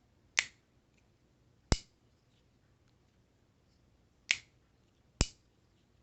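Cold Steel Mini Tough Light back-lock folding knife clicking as its blade is worked open and shut: four sharp snaps at uneven intervals.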